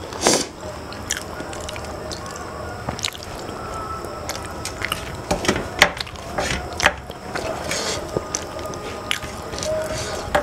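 Fingers scraping and wiping the last of the curry off a stainless steel plate, mixed with chewing and wet mouth smacks. Short sharp clicks come irregularly throughout.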